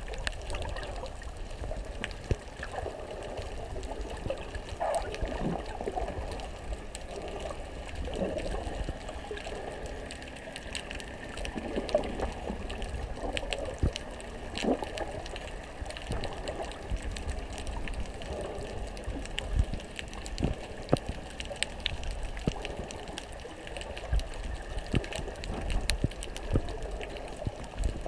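Underwater sound picked up by a GoPro inside its waterproof housing: a muffled low rumble of moving water with wavering swirls and scattered small clicks and crackles.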